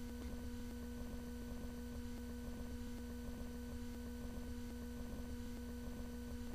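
Faint steady electrical hum in the recording: a low hum with a few constant pitched tones above it, unchanging throughout.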